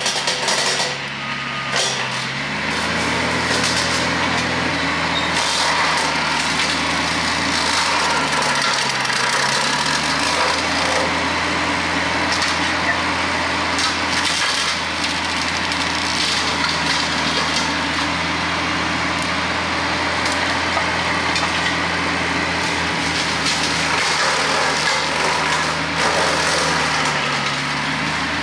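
TYM T474 tractor's diesel engine running under PTO load to power the hydraulic pump of a Hardee Brush Tiger rotary cutter, while the cutter's blade shreds cedar branches with a constant whir and crackle of splintering wood. The engine's pitch rises about two seconds in, then dips and recovers twice, once about a third of the way through and once near the end.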